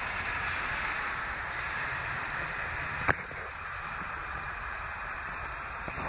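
Steady rushing noise of a vehicle driving slowly on the snow-covered street, easing off gradually, with one sharp click about three seconds in.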